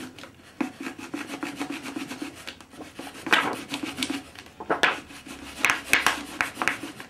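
Mylar release strip being wiggled back and forth in the seam of a glider fuselage mould to work the mould halves free of the moulding: a continuous scratchy rubbing of plastic sheet on the mould, with several louder scrapes in the second half.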